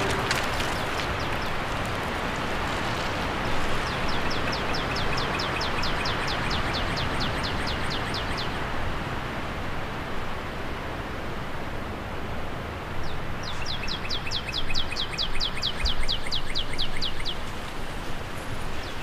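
Steady wind noise with a small songbird singing a fast trill of rapidly repeated high notes, twice, each run lasting about five seconds: once starting a few seconds in and again past the middle.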